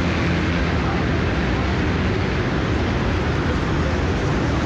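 A large pack of motocross bikes racing along a sand beach track, their many engines merging into a steady, loud drone.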